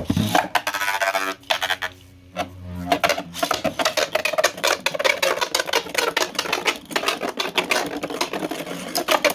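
Two 3D-printed left-spin Beyblades launched into a stadium: a sharp rip at the very start, then a spinning whir for a couple of seconds, then rapid clattering as the tops collide and rattle against each other again and again.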